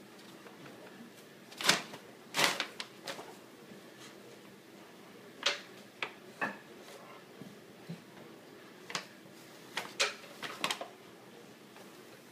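Brown paper bag crinkling and rustling in short, sharp bursts as kittens pounce on and wriggle about in it, in three clusters: about two seconds in, around six seconds, and again around ten seconds.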